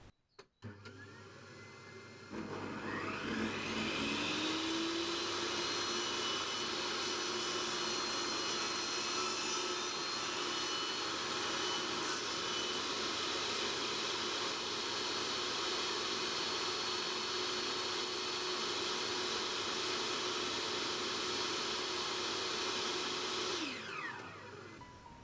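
Bosch PTS 10 table saw motor switched on, winding up to speed with a rising whine. It runs steadily at full speed for about twenty seconds with no sign of load, then is switched off and winds down near the end.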